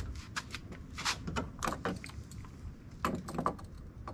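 Irregular sharp metallic clicks and taps of a Torx screwdriver bit against a door-panel screw and the surrounding plastic trim, with a bunch near the middle and another near the end, as a T20 bit is tried in a screw a size too large for it.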